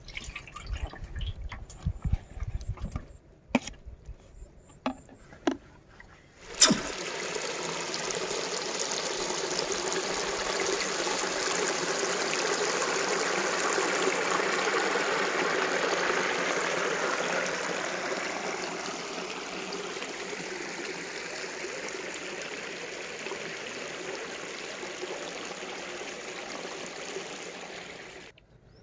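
Water running over a small drop in a grassy field channel, a steady rush that starts suddenly a few seconds in and stops suddenly near the end. Before it come a few seconds of scattered clicks and knocks.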